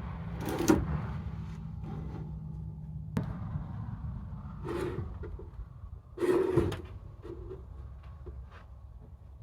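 A machine engine running steadily at low pitch, which drops away about three seconds in. Three short louder knocks or bangs come at intervals, with lighter ticks between them.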